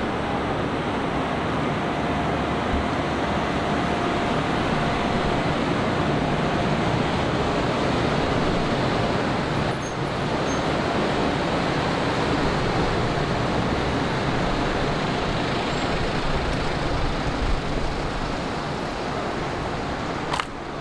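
Steady city-street traffic noise, a continuous hum of vehicles with no single one standing out. A brief louder knock sounds a little before the middle, and a sharp click comes near the end.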